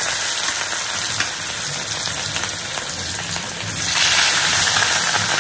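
Fish pieces sizzling as they fry in hot oil in an iron kadai, a dense steady sizzle. It grows louder about four seconds in, as another piece of fish is slid into the oil.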